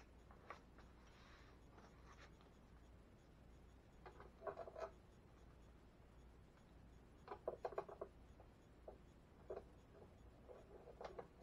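Faint scratching and small clicks of hands working insulated wires into an open inverter wiring box, coming in a few short clusters against near silence.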